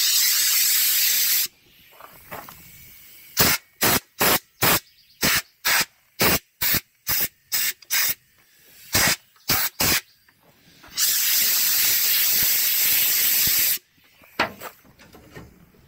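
Compressed-air blow gun hissing as it blows brake dust out of a drum brake assembly. A steady blast stops about a second and a half in, then comes a quick run of about fifteen short bursts, then another steady blast of about three seconds.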